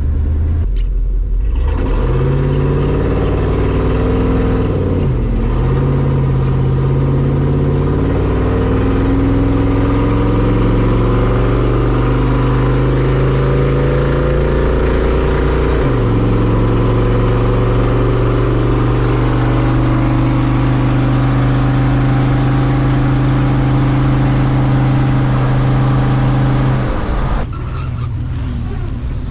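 LS V8 engine in a 1954 Chevy, driving under load. The pitch climbs, dips briefly about five seconds in and again about sixteen seconds in, then holds steady before the note drops away near the end.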